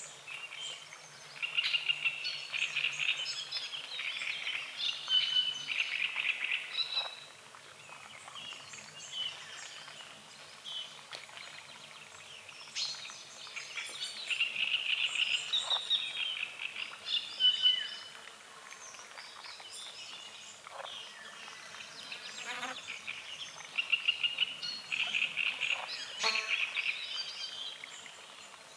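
Dawn chorus at a lake: frogs croaking in bouts of rapid pulsing lasting a few seconds each, three times, with birds chirping and singing throughout.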